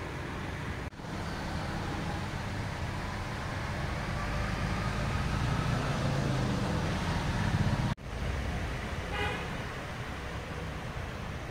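Road traffic passing: a vehicle's low engine rumble swells and fades, and a short horn toot sounds about nine seconds in.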